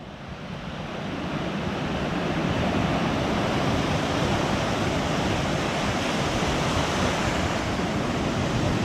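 Steady rush of a flowing trout stream, fading in over the first few seconds and then holding even.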